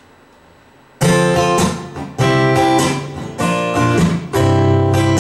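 Acoustic guitar strummed in a steady rhythm, starting suddenly about a second in after a quiet moment: the instrumental intro before the singing.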